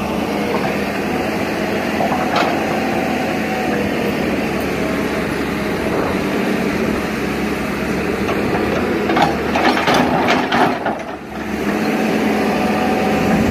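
Tata Hitachi crawler excavator's diesel engine running steadily under hydraulic load as the arm and bucket dig. About nine to eleven seconds in there are a few short knocks and scrapes as the bucket works the soil.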